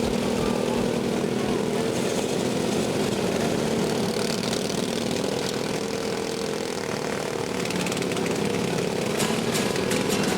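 Riding lawn mower engines running together in a steady drone. A run of sharp knocks comes about a second before the end.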